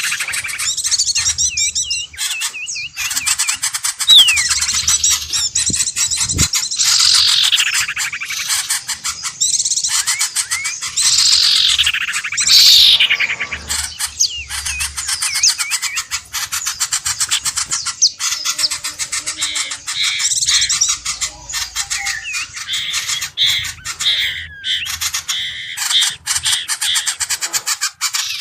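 Bird-lure recording of small birds chirping and trilling rapidly in a dense chorus, with loud downward-sliding calls repeated every few seconds.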